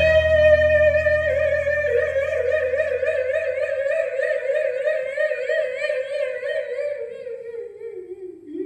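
A voice singing one long, high note in an operatic style. It wavers into vibrato after about two seconds and sinks in pitch near the end. A low droning note underneath fades out about halfway through.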